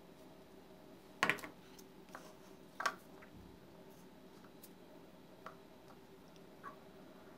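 A few short knocks and scrapes of a craft stick against the jar and the bowl while petroleum jelly is scooped out and wiped off, the two loudest about a second and three seconds in, with fainter ticks later.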